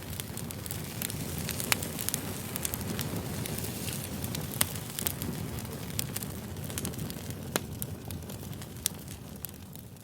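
Wood campfire burning: a steady low rush of flames with scattered sharp pops and snaps of the wood, a few of them loud.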